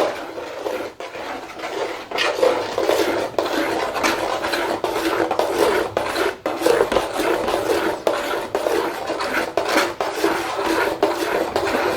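A utensil scraping and stirring thick urad dal and rice batter in a large pan, in quick repeated strokes against the pan's bottom. The batter is kept moving without pause so it doesn't stick or form lumps as it thickens.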